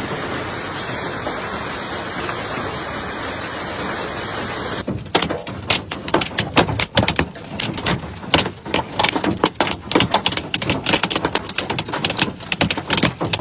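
Steady rush of hail and rain falling. About five seconds in it gives way to a dense, irregular clatter of hailstones hitting a moving vehicle.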